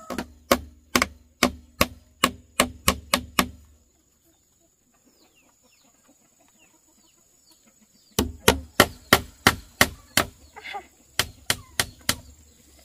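Repeated blows of a hand tool on building material, struck at an even two to three blows a second in two runs: about ten blows, a pause of some four seconds in which small birds chirp, then about a dozen more with a short break partway through.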